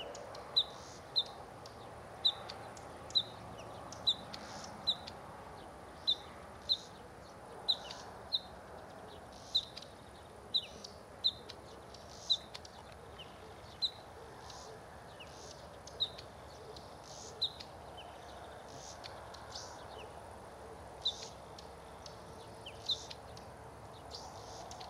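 Bluethroat giving short, sharp, high call notes over and over, about one a second at first, then more widely spaced in the second half.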